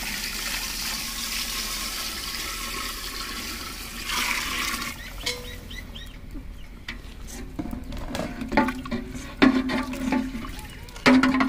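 Water poured from a vessel into a steel pot of chicken curry, a steady splashing rush that ends about four or five seconds in. The liquid is then stirred with a steel ladle, with scattered clicks and knocks of metal against the pot.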